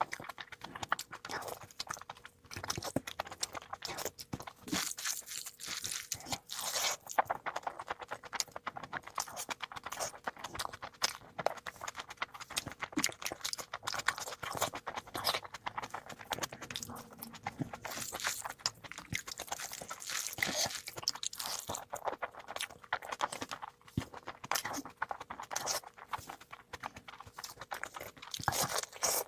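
Close-miked eating sounds from a meal of meat curry and pulao: continuous wet chewing, smacking and crunching, a dense stream of quick mouth clicks.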